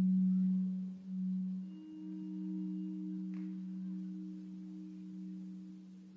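Soundtrack music: a soft, held low drone tone, joined about two seconds in by a second, higher held note, the two fading down toward the end.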